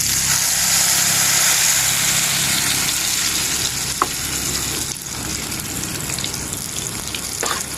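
Shrimp ukoy fritters sizzling as they fry in oil in a pan, a steady hiss that eases slightly about five seconds in. Two short clicks, about four seconds in and near the end.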